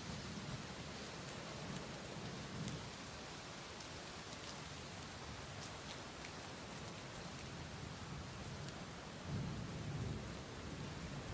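Steady rainfall with scattered sharp drop ticks, under low rumbles of distant thunder; the strongest rumble swells about nine seconds in.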